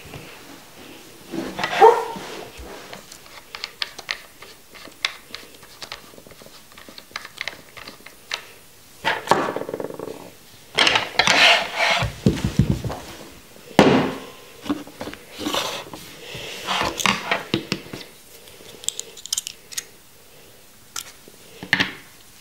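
Close-miked handling of vape gear on a tabletop: scattered clicks, taps and clinks of small metal parts and bottles being picked up and set down, with a few louder, longer rustles in the middle.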